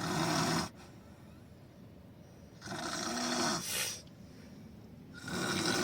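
Heavy snoring: three loud snores about two and a half to three seconds apart, the middle one trailing off into a short extra puff.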